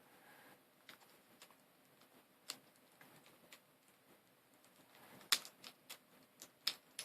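Plastic pieces of a V-Cube 7 puzzle cube clicking and tapping as they are handled and fitted into the partly rebuilt cube. The clicks are faint and scattered, with a sharper run of clicks from about five seconds in.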